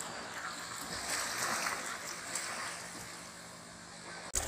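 Small waves washing up on a sandy beach: a soft, steady surf wash that swells and ebbs. It breaks off abruptly near the end.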